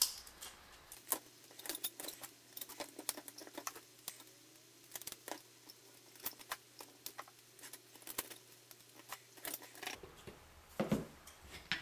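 Nylon cable ties being pulled tight around 3D-printed plastic quadcopter arms: a scatter of faint, irregular ratcheting clicks and plastic handling noise, with a couple of louder clicks near the end.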